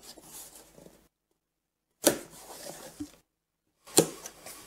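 Packing tape being peeled off a cardboard box and the flaps handled: scratchy rasps and rustles, with a sharp rip about two seconds in and another near the end, broken by spells of dead silence.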